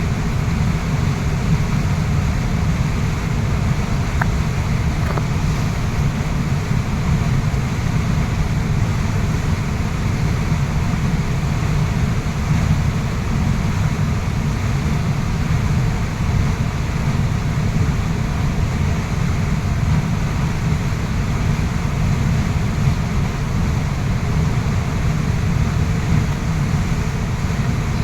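Waterfall rushing steadily, a continuous deep rumble of falling water with a lighter hiss above it.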